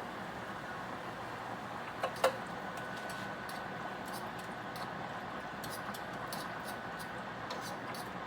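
Kitchen cookware sounds over a steady hum: two sharp clinks about two seconds in, then light scattered ticks.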